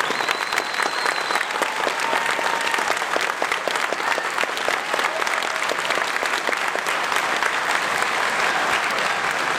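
A large audience applauding: many people clapping steadily, with no break.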